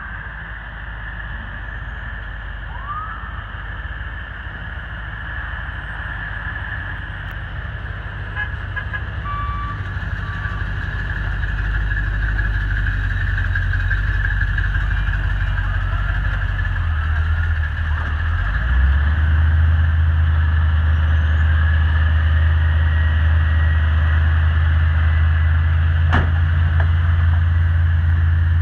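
Tow trucks' engines running as a slow line of wreckers rolls past close by: a deep steady engine drone that grows louder through the clip and holds strongest from about two-thirds of the way in.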